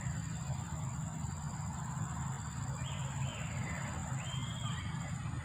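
Steady high-pitched insect drone, like crickets or cicadas, over a low steady hum, with two short chirps about three and four seconds in.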